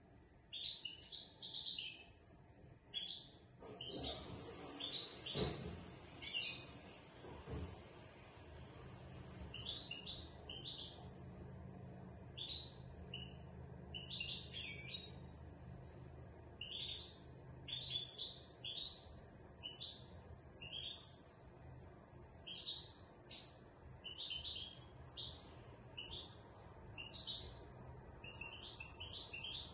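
Caged European goldfinch of the large 'major' (Siberian) race singing in quick, repeated twittering phrases, with a short pause about seven seconds in. A few low knocks and a brief rumble sound between about four and eight seconds in.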